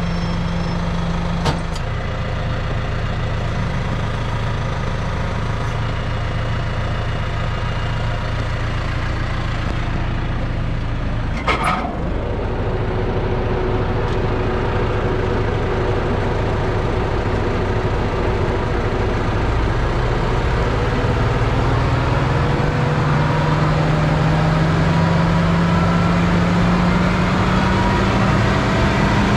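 Tractor diesel engine running at a steady idle, with a single metallic clank about twelve seconds in. Over the last several seconds the engine speed rises slowly and steadily.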